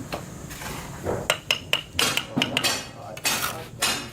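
A run of sharp metallic clinks and knocks, some with a brief ringing tone, starting about a second in, mixed with short scraping sounds.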